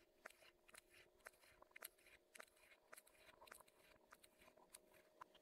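Faint crunchy crackling of a blade slicing through a block of kinetic sand, many small irregular crackles as the packed sand breaks apart along the cut.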